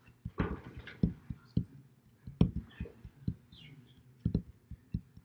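A run of soft, irregular knocks and clicks, several a second.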